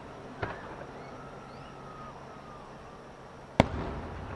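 Fireworks shells bursting: a light bang about half a second in, then a much louder sharp bang near the end followed by a rolling rumble.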